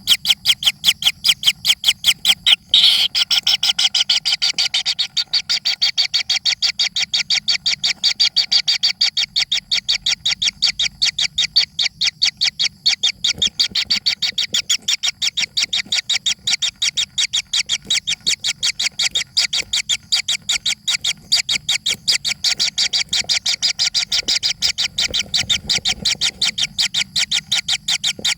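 Baby birds begging to be fed: an unbroken run of short, high-pitched chirps, about five a second.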